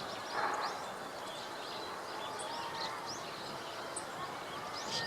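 Meadow buntings giving short, high 'chi-chi-chit' calls, scattered chirps that grow busier near the end, over a steady outdoor background hiss. A short burst of noise comes about half a second in.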